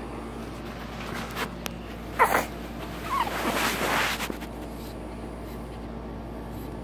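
Newborn baby making a short squeak about two seconds in and a smaller one a second later, followed by about a second of rustling against the bedding.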